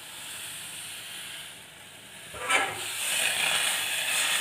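Tea water with ginger and spices boiling in a steel saucepan on a gas burner: a steady hissing bubble. A brief knock comes about halfway through, after which the hiss is louder.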